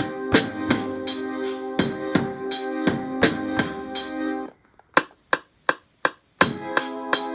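Drum-machine beat playing back from an Akai MPC Live using its stock sounds: kick and snare hits over sustained keyboard chords. A little past halfway the chords and groove drop out, leaving a handful of lone hits, then the full pattern comes back near the end.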